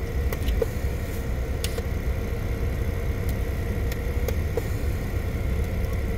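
Steady low rumble of a car's engine running, heard from inside the cabin, with a faint steady hum over it and a few light clicks.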